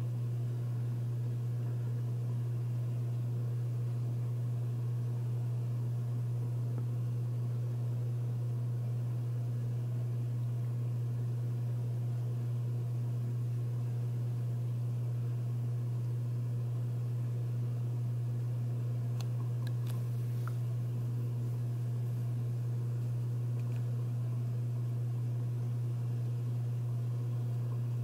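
Montgomery Ward (Evergo) ceiling fan running with a steady low motor hum. A few faint clicks come about two-thirds of the way in.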